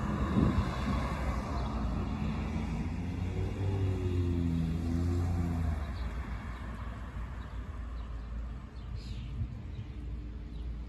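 Cars driving past on a paved road: one going by at the start, fading away, and a second sedan passing about three to six seconds in with its engine note and tyre noise rising and then falling. A steady low rumble lies underneath.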